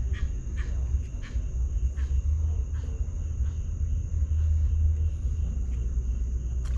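A steady low rumble, with a continuous high insect chorus and scattered faint clicks over it.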